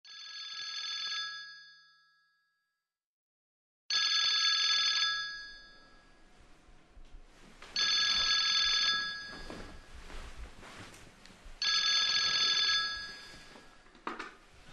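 Telephone ringing four times, each ring about a second long and about four seconds apart. Near the end the ringing stops and there is a click as the handset is picked up.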